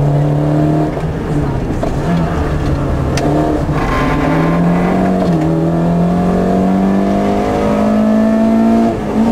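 Rally car engine heard from inside the cabin, pulling hard at speed. Its note climbs and drops back several times, then rises steadily through the second half before falling back near the end.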